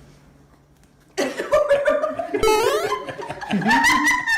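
Laughter starting about a second in after a short quiet spell, with a quick rising squeal in the middle.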